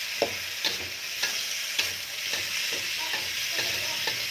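Sliced young coconut shoots stir-frying in hot oil in a metal wok: a steady sizzle, with a metal spatula scraping and knocking against the wok about twice a second.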